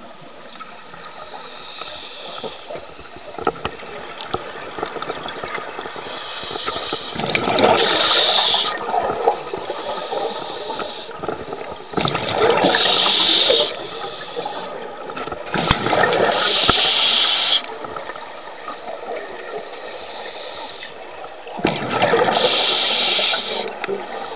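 Scuba diver's breathing heard underwater: exhaled regulator bubbles gurgle and rush in four loud bursts a few seconds apart, over a steady watery hiss.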